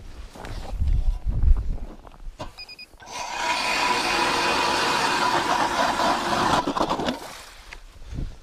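StrikeMaster Lithium battery-powered ice auger drilling through lake ice: the electric motor runs steadily with the blades cutting ice for about four seconds, then slows to a stop. A brief double beep sounds just before it starts.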